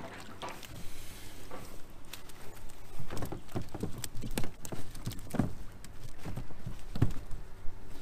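A wet keepnet is lifted out of the lake, water streaming and dripping from it. It is then laid on the wooden platform, with irregular soft knocks and patters as the net mesh and the fish inside shift against the boards.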